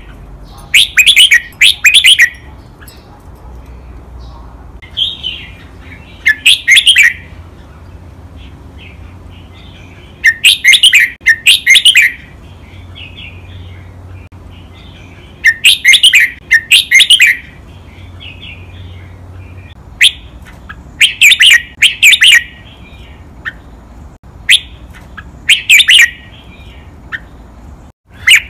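Red-whiskered bulbul singing: short, loud, clear phrases of several quick notes, repeated every four to five seconds, with softer chattering notes between the phrases.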